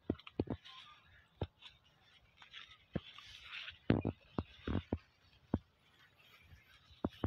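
Irregular clicks, knocks and soft rustling as a handheld phone is moved through cucumber vines, its body and microphone brushing against the leaves and stems.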